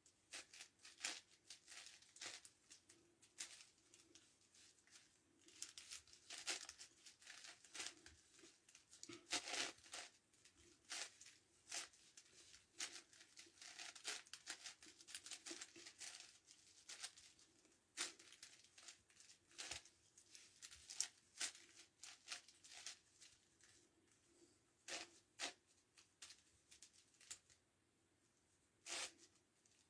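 A 9x9x9 Rubik's Cube being turned by hand: its plastic layers click and scrape in quick, irregular runs of turns with short pauses between.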